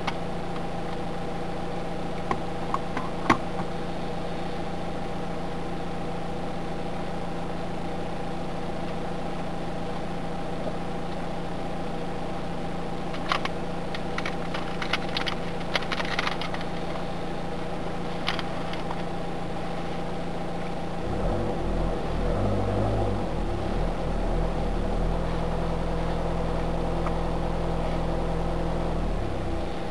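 Steady hum of a stationary car idling, heard from inside the cabin, with a few light clicks around the middle. A deeper low rumble joins about two-thirds of the way through and stops shortly before the end.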